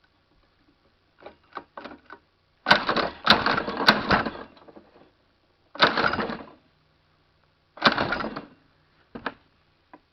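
Honda G100 engine being pull-started on its recoil starter: three rattling pulls, the first the longest, with short clicks before them. The engine does not fire, a sign that the freshly rebuilt engine is dead, which the owner takes it to be.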